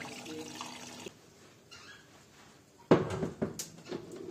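Water swishing over sprouted wheat in a bowl, cut off abruptly about a second in. About three seconds in come several sharp knocks and clatters of a metal tray and meat grinder being handled on a wooden counter.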